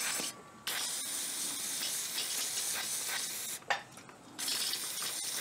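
Aerosol cleaner spraying in hissing bursts onto an oily mower engine: a short burst, a long one of about three seconds, and another near the end, washing off the oil from a leak around the oil drain tube.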